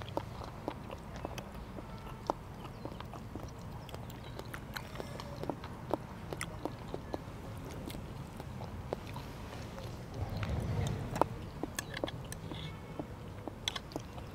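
Mukbang eating sounds: metal forks clicking and scraping on ceramic plates, with chewing picked up close by a clip-on microphone. A brief low rustle comes about ten seconds in.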